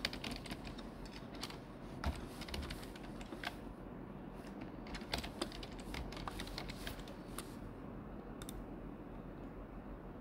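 Typing on a computer keyboard: irregular key clicks as a username and password are entered, thinning out near the end.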